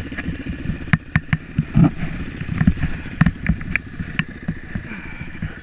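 Dirt bike engine running at low revs, with sharp knocks and clatter as the bike is worked over a fallen log.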